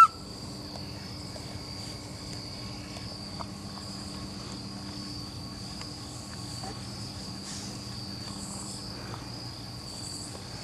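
Night insects at the campsite making a steady, high-pitched chorus that holds unbroken.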